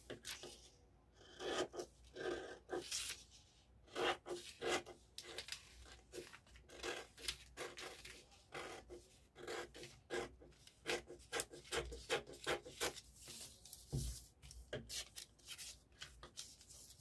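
Pattern paper rustling and crinkling as the pieces are handled and cut with scissors, a string of short, irregular crackles.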